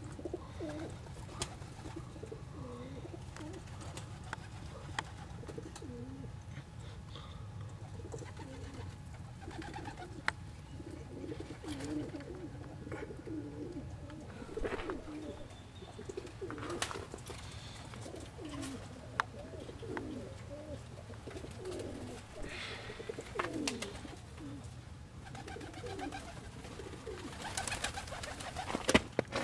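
Domestic pigeons cooing, low rolling coos repeated throughout. A few sharp clicks are scattered through it, with a cluster of clicks and rustling near the end.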